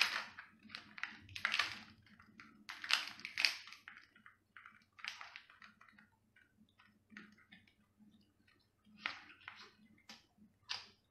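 Cooked lobster shell cracking and tearing as it is pulled apart by hand, a run of crackling snaps in the first few seconds and another cluster near the end, with biting into the meat in between.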